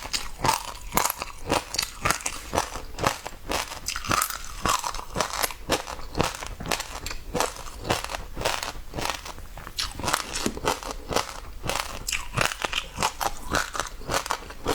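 Passionfruit seeds crunching and popping between the teeth while the pulp is chewed, a rapid, irregular run of sharp cracks, several a second.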